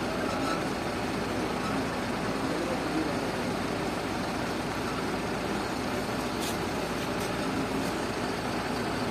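Steady running noise of a mobile diesel dispenser's pump as diesel flows through the hose nozzle into a metal calibration measuring can during a slow 5-litre test dispense.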